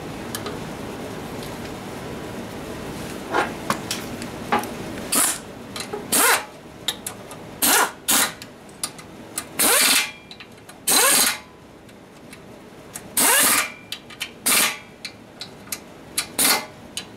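A small cordless power wrench is run in about nine short trigger bursts, from about five seconds in, its motor whirring up briefly each time as it works a fastener at the small engine's carburetor. Small tool clicks come between the bursts.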